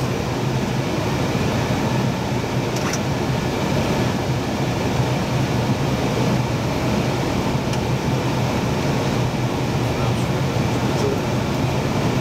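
Steady in-flight cockpit noise of an Airbus A320 on final approach: a constant rush of airflow and air conditioning over a low hum, with a few faint ticks.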